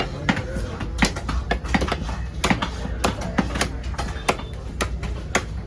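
Heavy knife chopping a parrotfish into small pieces on a cutting block: repeated sharp strikes, irregular, two or three a second, with faint voices behind.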